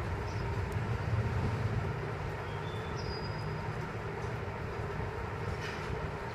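A steady low rumble, like a vehicle or machinery, with a couple of brief high squeaks about halfway through and a few faint clicks near the end.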